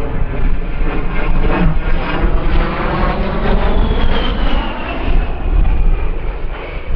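Twin General Electric TF34 turbofan engines of a USAF A-10 Thunderbolt II in a flying display. There is a steady jet rush, and a high fan whine falls in pitch as the aircraft passes, from about three and a half seconds in.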